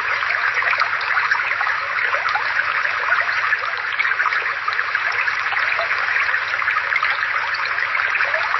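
Water flowing in a small brook: a steady babbling trickle full of small bubbling splashes.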